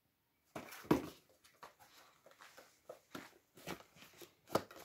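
A paper gift bag and a boxed toy being handled: a string of short rustles and knocks, the loudest about a second in.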